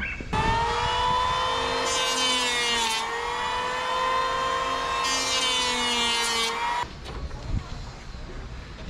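An electric hand planer runs with a steady whine while cutting a wooden stanchion. Two planing passes add a loud hiss, the first about two seconds in and the second about five seconds in. The motor then switches off.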